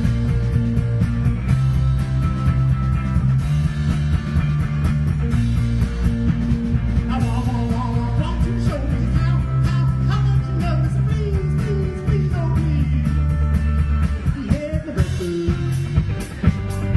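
Rock band playing live: electric guitars and drums over a heavy low end, with a melody line that slides and bends in pitch through the middle.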